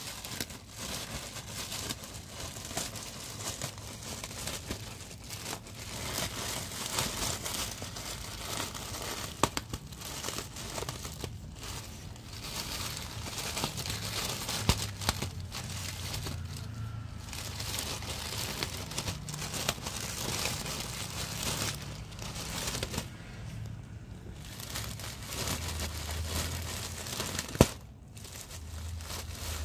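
Clear plastic packaging bag crinkling and rustling almost nonstop as a Bichon Frisé bites and tugs at it, tearing at the wrapping, with a few brief lulls and three sharp snaps.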